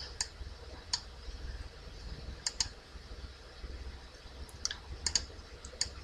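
Computer mouse clicking: about eight short, sharp clicks at uneven spacing, some in quick pairs, over a faint low hum.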